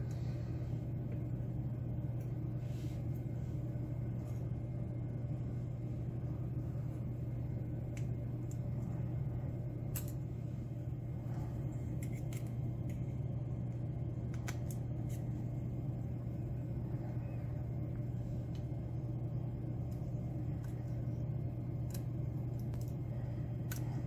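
A steady low hum, with faint scattered clicks of metal tweezers setting small pins into a padlock core as it is put back together.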